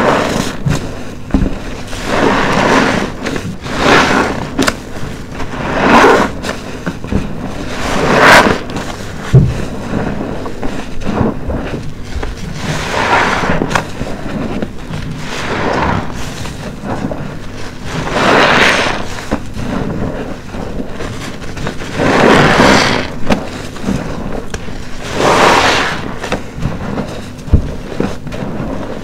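Wet, soap-soaked sponges squeezed over and over, each squeeze a foamy squelch, recurring every few seconds, with an occasional sharp tap.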